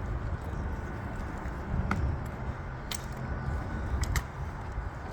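Drill rifles being handled in an exhibition drill routine: a few sharp clacks of hands catching and slapping the rifles, about two and three seconds in and a quick pair near four seconds, over a steady low rumble of wind.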